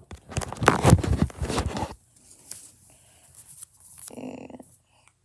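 Handling noise as a phone camera is moved: about two seconds of dense rustling and scraping with knocks, then quiet with a few faint rustles.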